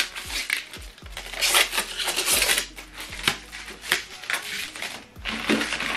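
Thin plastic packaging bag crinkling and rustling in irregular bursts as a TV remote control is unwrapped by hand, with a few light knocks of the remote being handled.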